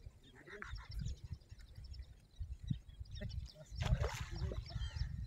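A hooked fish splashing at the water's surface as it is played on a fishing rod, with the sharpest splash about four seconds in. Small birds chirp in the background.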